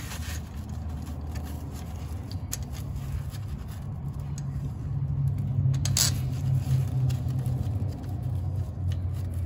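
Scattered light metal clicks and taps of a driveshaft flange and its bolts being lined up and threaded in by hand, the sharpest about two and a half and six seconds in, over a low steady hum.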